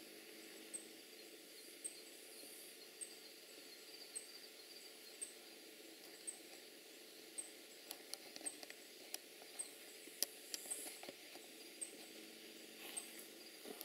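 Quiet night-forest sound: a short, high chirp repeating about once a second, from a calling insect, over a faint steady hiss. A few sharp clicks come in the second half.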